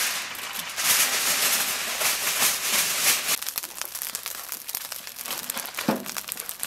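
A large sheet of aluminium foil being crinkled and crumpled as it is folded around a big piece of meat, dense and loud for about the first three seconds. It then thins out to sparser crinkles and crackles.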